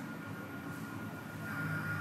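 Steady low background hum with a faint, steady high-pitched whine, growing slightly louder about one and a half seconds in.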